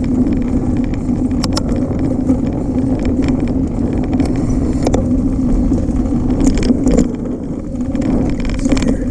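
Bicycle riding along a trail: steady rumble of the tyres rolling, with a few sharp rattles of the bike over bumps.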